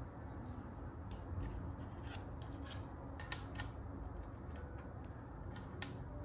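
Plastic Rummikub tiles being moved by hand on a tabletop, sliding and clicking against the table and each other in a scatter of short sharp clicks. The sharpest clicks come just past three seconds in and near the end.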